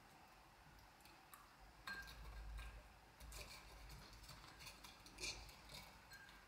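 Fingers rummaging through small pink and white sweets in a glass jar: faint light clicks and taps of sweets and fingertips against the glass, starting about two seconds in, with the sharpest click a little past five seconds.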